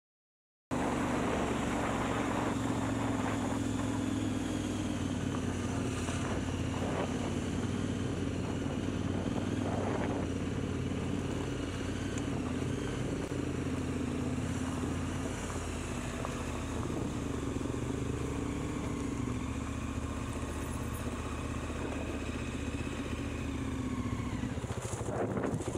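Motorcycle engine idling steadily, cutting in about a second in. Near the end a second dirt bike's engine joins as it rides up close.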